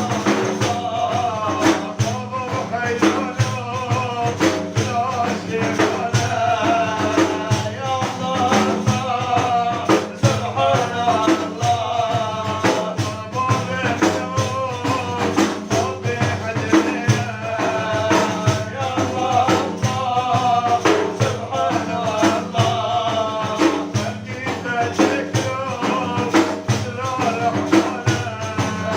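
Kurdish religious praise song (madih): a solo male voice singing a melismatic line over a steady beat of frame drums with jingles.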